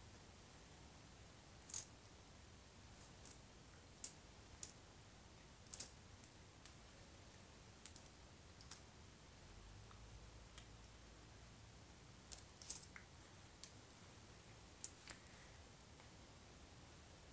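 Faint, sharp clicks and taps at irregular moments, about twenty in all, from long fingernails and rings knocking together as the hands sign, over near-silent room tone.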